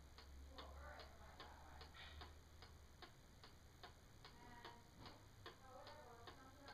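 Pendulum mantle clock ticking steadily and faintly, about two and a half ticks a second.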